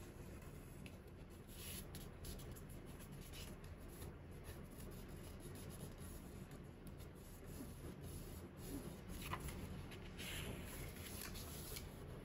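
Origami paper being folded and creased by hand: faint rustling and rubbing of the paper sheet, with a few sharper scrapes near the end.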